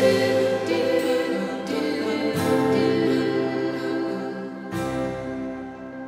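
Intro theme music: sustained chords that change every second or two, slowly fading down near the end.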